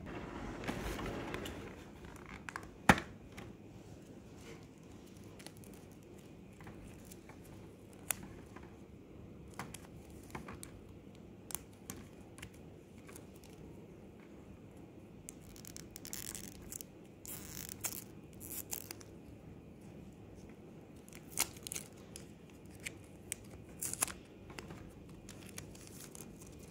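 Clear plastic sticker packaging crinkling and rustling in the hands in short bouts, with scattered light clicks and one sharp tap about three seconds in.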